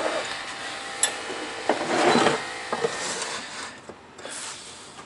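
Workbench handling noises: a short scrape or rub about two seconds in, with a few light knocks around it, then quieter near the end.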